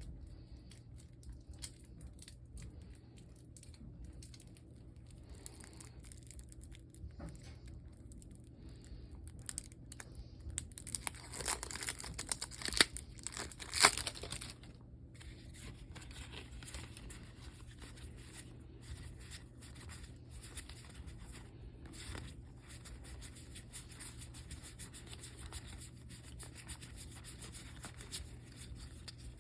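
Packaging on board-game components being crinkled and torn open, with a louder stretch of tearing about halfway through and two sharp rips near its end; quieter rustling and handling the rest of the time.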